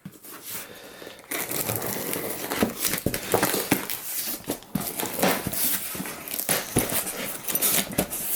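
Packaging rustling and crinkling as a box of motorbike-kit parts is opened and rummaged through, with many small knocks and clicks. It is quieter for about the first second, then busy.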